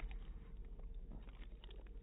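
French bulldog chewing: faint, scattered wet smacks and clicks of its jaws, lips and tongue.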